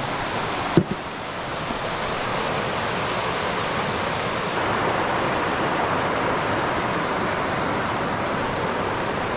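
River water rushing steadily over a riffle, with one brief click about a second in.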